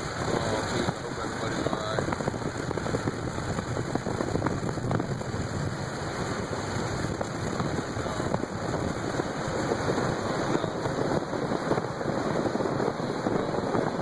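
Wind-driven rain and small debris hitting a car, heard from inside the car: a dense, steady rush of noise scattered with many small ticks.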